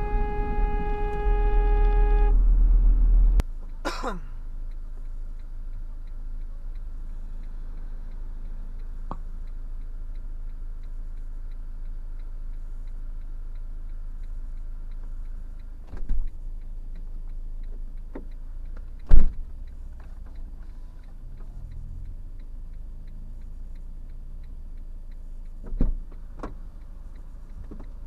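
Car horn held in one steady tone that stops about two seconds in, then the steady low engine and road rumble of a car driving, heard from inside the cabin. Three sharp knocks break through it, the loudest about 19 seconds in.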